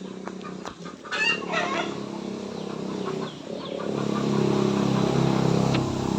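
Chickens clucking, with a loud run of calls about a second in. From about four seconds in, a steady low hum grows louder underneath.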